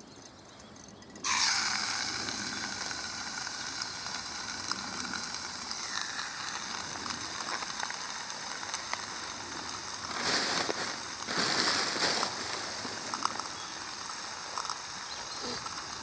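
Bacon rashers sizzling in a hot camping pot on a small camp stove, the sizzle starting suddenly about a second in as the raw bacon goes into the pan and carrying on steadily, louder for a couple of seconds about two-thirds of the way through.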